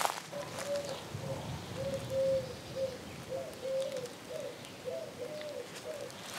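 A bird calling with a long series of low, hollow cooing notes, repeated in a loose rhythm. The later notes rise and fall slightly.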